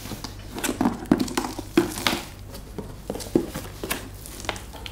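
Cardboard shipping box being opened by hand: the top flaps are pulled apart and rubbed, with irregular scrapes and knocks of cardboard.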